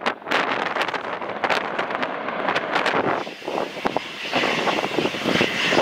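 Wind buffeting the microphone in gusts over the distant noise of an Embraer Legacy 600 business jet on the runway. About three seconds in, this gives way to the steadier, high-pitched whine of its Rolls-Royce AE 3007 turbofans as the jet taxis close by.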